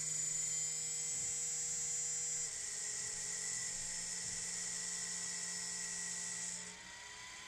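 Heatsink cooling fan on a Flyingbear Ghost 4 3D printer's hotend, a cheap sleeve-bearing fan, running with a loud high whine and a low buzz. This is the rattle of a failing sleeve-bearing fan that no longer moves enough air to cool the heatsink. The whine steps down a little about two and a half seconds in and stops near the end, leaving a quieter hum.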